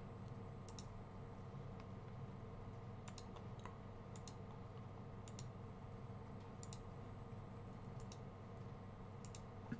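Scattered computer mouse clicks, a dozen or so at irregular intervals, over a steady low hum.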